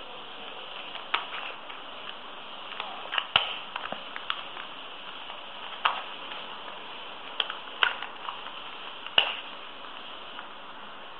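3x3 Rubik's Cube being turned by hand: irregular plastic clicks as the layers snap round, about eight in all, over a steady hiss.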